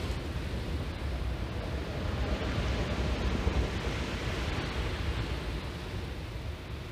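Surf breaking on a shingle beach, swelling to a wash about halfway through and then easing off, with wind rumbling on the microphone.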